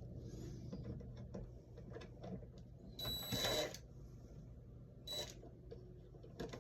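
Faint small metal clicks and scraping from a screwdriver working the screws of a wall light switch, with a short rasping burst about three seconds in and a briefer one about five seconds in, over a steady low hum.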